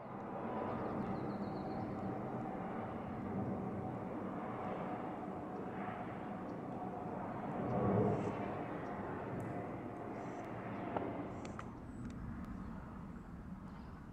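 Airbus A310 jet on approach, heard from the ground: a steady engine drone with faint whining tones, fading in at the start and swelling briefly about eight seconds in.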